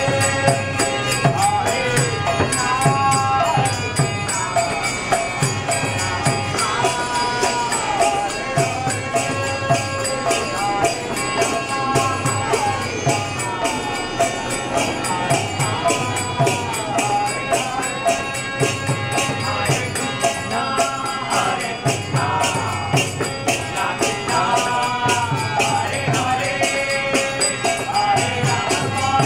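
A kirtan: a man sings a devotional chant over a harmonium's steady drone. Egg shakers and hand percussion keep a steady beat.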